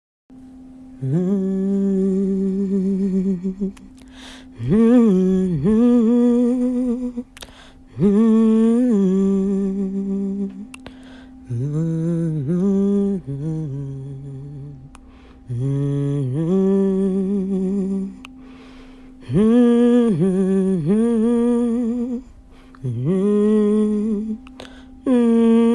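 A person humming a wordless tune in about eight short phrases, each sliding up into a held note, with brief pauses between them. A faint steady tone sounds underneath throughout.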